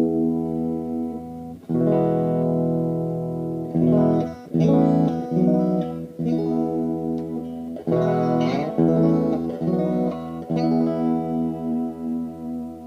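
1978 Japanese-made Fernandes FST-50 Strat-style electric guitar being played: chords struck and let ring, mixed with quicker single-note phrases, with brief gaps between phrases.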